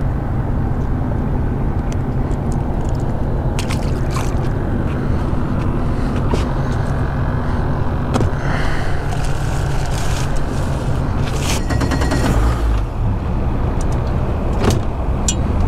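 Wind buffeting the microphone as a steady low rumble, with scattered clicks and knocks of gear being handled on a fibreglass skiff and a brief run of rapid ticks about twelve seconds in.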